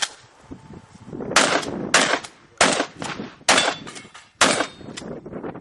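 Shotgun fired in quick succession during a practical-shooting stage: about six sharp shots roughly half a second to a second apart, each with a short echo.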